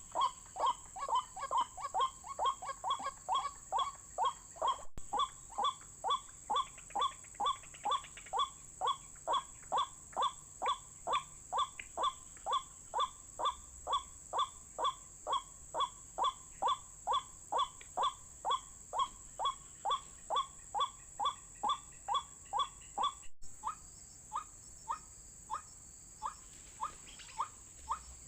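White-breasted waterhen calls used as a trapping lure: a fast, even series of short, falling notes, about two to three a second, that thins out near the end.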